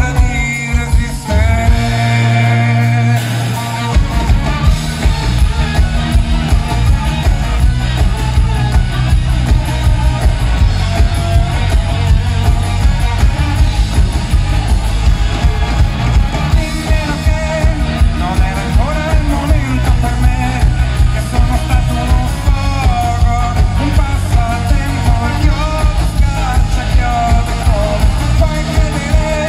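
Live rock band: electric bass, drums and a male lead vocal singing over a steady beat, heard from the crowd. About two seconds in the beat and bass drop out briefly under a held chord, then the full band comes back in.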